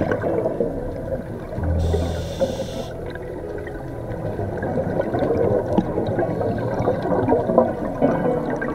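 Underwater sound of scuba breathing through a regulator: exhaled bubbles gurgling throughout, with a short hiss and low hum about two seconds in.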